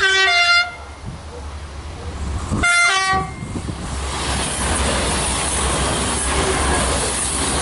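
X TER diesel railcar sounding its horn in two short blasts, one at the start and one nearly three seconds in. It then passes close by with a loud, steady rush of engine and wheel noise.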